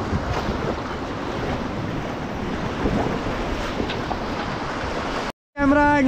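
River water rushing around an inflatable raft, with wind noise on the microphone. The sound cuts off abruptly a little before the end, and a voice starts up just after.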